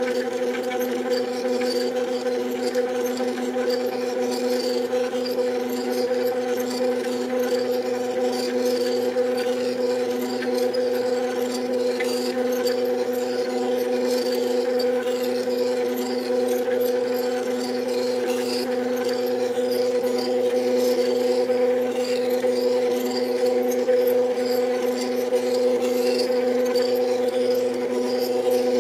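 Two stepper motors driving an Etch-A-Sketch's knobs through pulleys and belts while it draws a pattern, a steady buzzing whine with a strong low hum that starts abruptly and holds level throughout, with a rough rasping noise over it.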